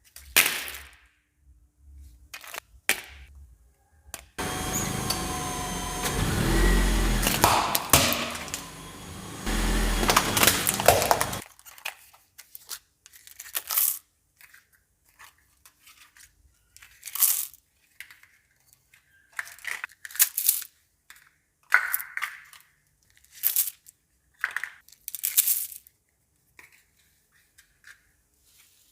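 A car crushing brittle objects under its tyres: a few sharp cracks, then about seven seconds of steady car and tyre noise, then a long series of separate sharp snaps and crunches.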